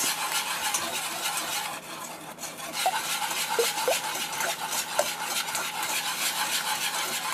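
Wire balloon whisk beating quickly through a thin batter of melted butter, sugar and egg in a saucepan, its wires clicking and scraping against the pan in a fast, steady rhythm, with a brief lull about two seconds in.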